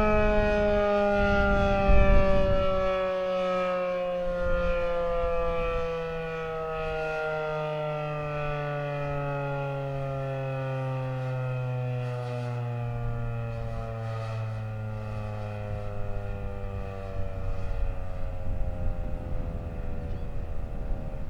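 Federal Signal 2001-130 electromechanical rotating siren winding down at the end of its one-minute alert, its tone falling slowly and steadily in pitch as the rotor coasts down.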